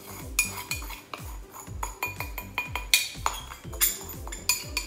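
Metal spoon scraping and clinking against a glass bowl as sugar is spooned out, a quick irregular run of sharp clinks, each with a short ring.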